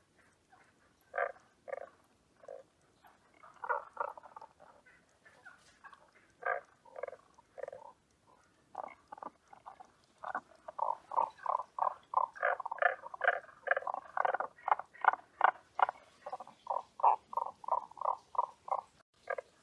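Tago's brown frog (Rana tagoi) calling: short, repeated croaking notes, scattered at first, then from about ten seconds in a fast run of about three or four notes a second.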